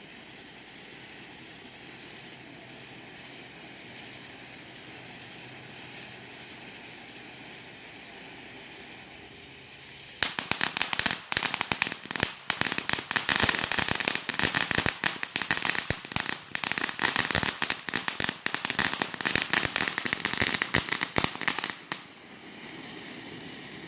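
Firecrackers going off in a long, rapid string of sharp pops and crackles that starts suddenly about ten seconds in and stops about two seconds before the end. Before it there is only a faint steady hiss.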